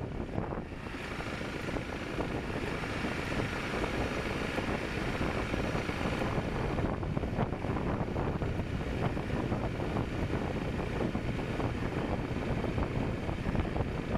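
Honda CRF300L's single-cylinder engine running as the motorcycle rides along at low town speed, with wind buffeting the camera's microphone.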